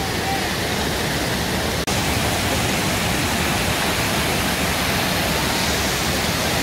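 Steady rush of water spraying and pouring down from a children's water-play structure, with a momentary dropout about two seconds in.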